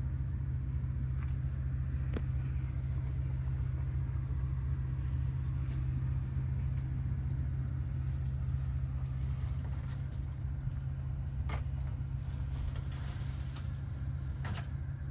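A steady low rumbling hum, with a few faint clicks here and there.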